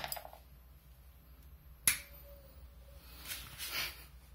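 The fading tail of a reverse-connected electrolytic capacitor's bang, then one sharp click about two seconds in and a short rustle near the end.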